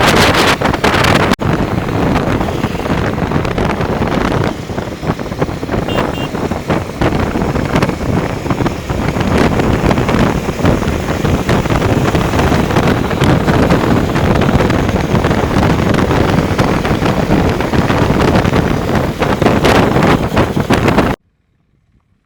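Wind rushing hard over the microphone of a moving motorcycle, with the engine running underneath. The sound cuts off abruptly about a second before the end.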